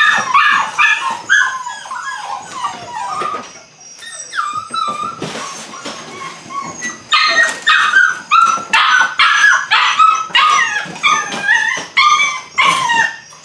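Belgian Malinois puppies yipping and barking in short high-pitched calls. They ease off for a few seconds in the middle, then come in a fast run of yips over the last half.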